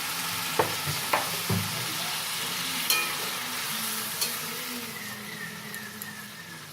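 Pan of spiced rice and potatoes sizzling while being stirred, with a few sharp knocks of the spoon against the pan; the sizzle slowly dies down toward the end.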